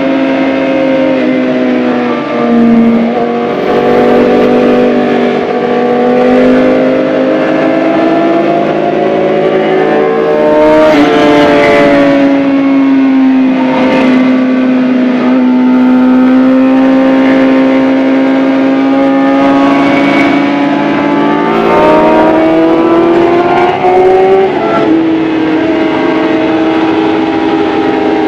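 2011 Suzuki GSX-R 750's inline-four engine running hard on track, pitch rising and falling with the throttle through the corners. There are a few brief sharp dips and jumps in pitch.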